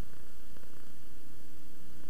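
Steady electrical hum with a low buzz and hiss, with no programme sound: the background noise of an analogue video-tape transfer.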